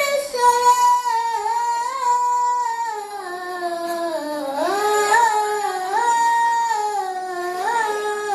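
A boy's voice chanting the azan, the Islamic call to prayer, into a microphone: long held notes that slide up and down with small ornamental wavers.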